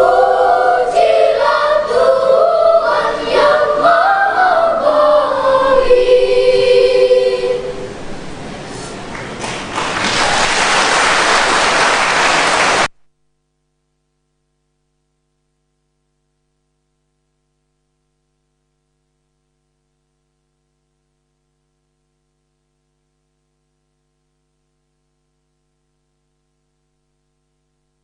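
Children's choir singing the closing phrase of a song and ending on a held chord about seven seconds in. About ten seconds in, applause starts and is cut off abruptly about three seconds later, leaving dead silence.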